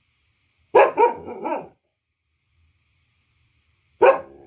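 A local-breed dog barking: a quick run of three or four barks about a second in, then a single bark near the end.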